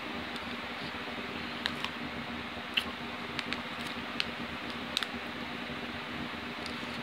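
Eating sounds: a scatter of short clicks from a plastic spoon on a plate and from chewing, about eight in all, over a steady low hum.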